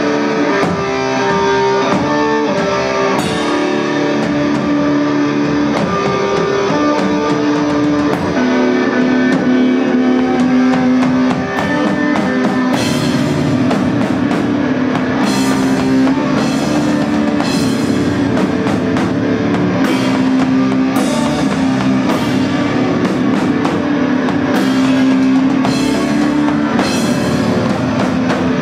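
Live rock band playing: guitars holding long, slowly changing notes over a drum kit, with cymbal and drum hits growing busier about halfway through.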